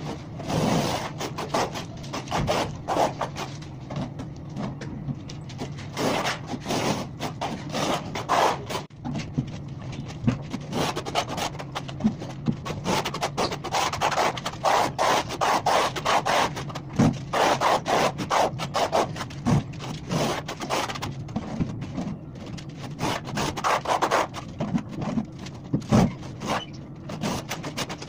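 Steel trowel spreading cement render over a smooth concrete wall in repeated uneven rasping strokes, with a sharp click now and then as mortar is scraped on and off the trowel.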